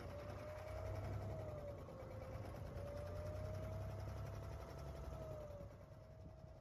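A low engine rumble, with a thin tone drifting slowly up and down above it that fades out near the end.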